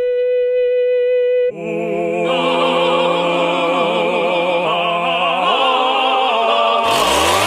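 Music with operatic singing: one long held note, then several voices singing with vibrato from about a second and a half in. The music changes near the end.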